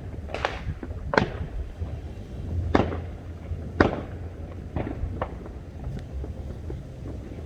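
Fireworks bursting, about six sharp bangs at irregular intervals, each trailing off in an echo, over a steady low rumble.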